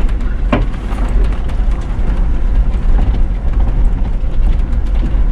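Vehicle driving slowly over a rough dirt track: a steady low engine and tyre rumble with frequent clicks and knocks from the bumpy ground, and a sharper knock about half a second in.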